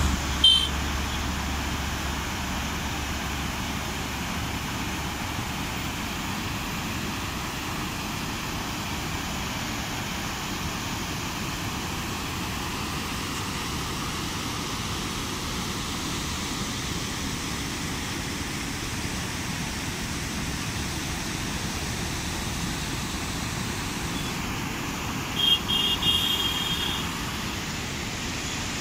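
Steady rushing roar of water released through the dam's gates, pouring down the stepped spillway and over the rocks below. Short high-pitched beeps cut in briefly near the start and again near the end.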